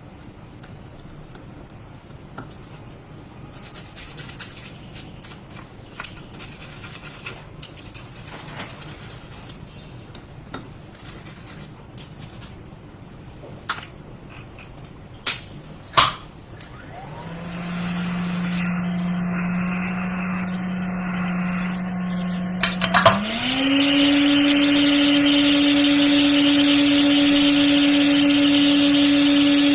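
Small clicks and taps of tools being handled. Then, just past halfway, the blower of a hot air rework station starts with a steady hum. About three-quarters of the way through it steps up in pitch and gets louder, with a strong rush of air as the airflow is turned up.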